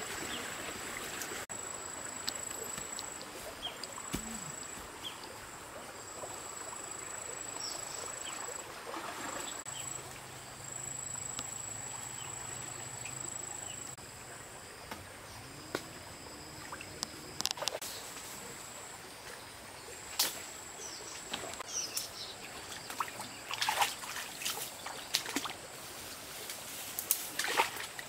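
Stream-side outdoor ambience: running water under a steady, on-and-off high-pitched tone. In the second half come scattered splashes and sloshes of feet wading through shallow water.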